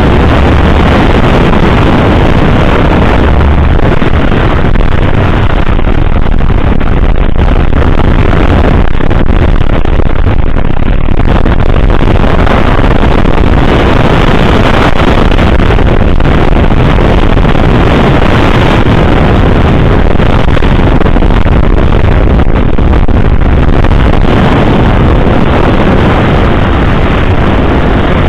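Yamaha XT660Z Ténéré's single-cylinder engine running at a steady pace on a dirt track, mixed with heavy wind buffeting on the microphone. Loud and steady, with no distinct events.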